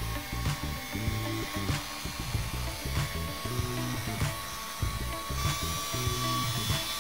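Hand-held electric car polisher whining steadily as its foam pad buffs the paintwork, over background music with a steady beat.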